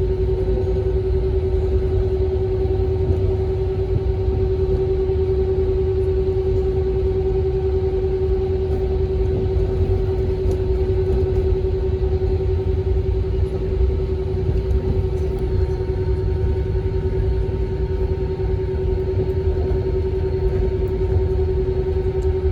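Cabin noise inside an Airbus A321: the jet engines' steady hum, with a low rumble and one clear steady tone. It does not rise or change, so this is not the engines spooling up for the takeoff roll.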